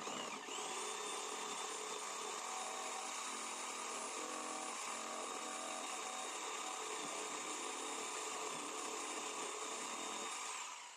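Güde STS 850 electric jigsaw (850 W) running while cutting curved shapes in a wooden board: a steady high motor whine that spins up as it starts and winds down near the end.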